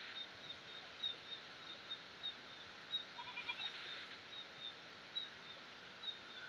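Outdoor animal sounds over a faint steady hiss: short, high chirps repeated about four a second, with a brief cluster of lower animal calls about three seconds in.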